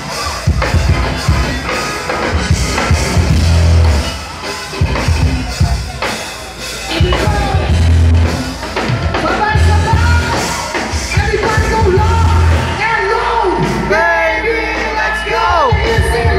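Rock band playing live: electric guitars, bass and drum kit. A singer's voice comes in over the band in the second half.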